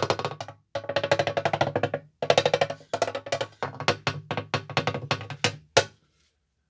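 A drum struck very fast with sticks: dense rolls of strokes broken by short pauses, thinning to separate strokes and ending on a single hard hit about six seconds in.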